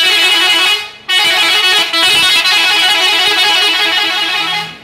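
Zentrum TZ 18 'telolet' multi-tone bus horn playing a melody: one short blast, then after a brief break a longer run of stepping notes that stops near the end.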